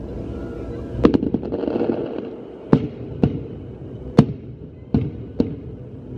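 Aerial firework shells bursting overhead in a string of sharp bangs, about six in a few seconds, the loudest two near the middle, over a steady low rumble.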